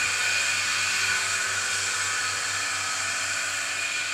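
Milking machine's vacuum pump running steadily, a hissing whine with a low, evenly pulsing throb underneath, growing slightly fainter toward the end.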